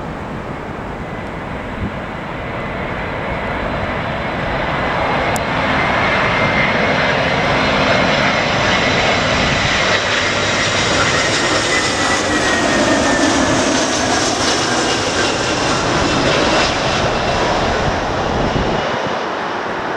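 Jet airliner passing close by, its engine noise building over several seconds and then easing, with a fan whine that slowly drops in pitch as it goes past.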